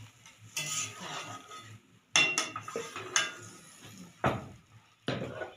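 Water poured from a jug into a steel kadai of curry, then a metal ladle clinking sharply against the pan and utensils several times.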